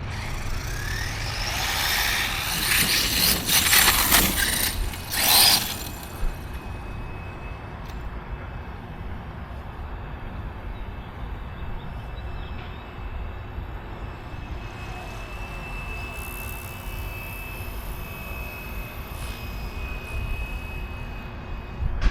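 Electric RC truck driving. For the first several seconds its motor whines in rising bursts over loud tire and ground noise, then it stays quieter and steady with a faint high whine for the rest.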